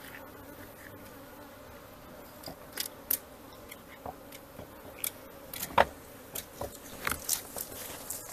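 Honey bee swarm humming steadily, with a scatter of short sharp clicks and taps starting about a third of the way in, the loudest a little past the middle.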